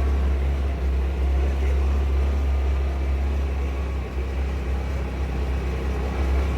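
Engine of a small vehicle running steadily while driving, with a strong, constant low rumble.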